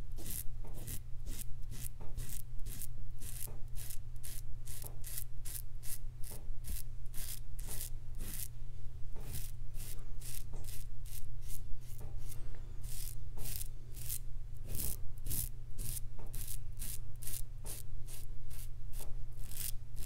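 Parker 63C open-comb safety razor with a Perma-Sharp blade scraping through lathered stubble on the neck against the grain, in short quick strokes, a crisp rasp about two to three times a second.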